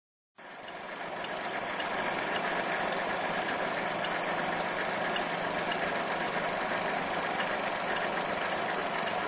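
Film projector running: a steady mechanical whirr and clatter over a low hum, starting abruptly just under half a second in.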